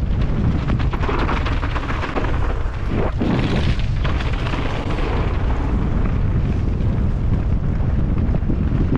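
Heavy wind buffeting on the microphone over a steady low rumble, with many short clattering knocks and rattles, as from a mountain bike ridden fast down a rough trail.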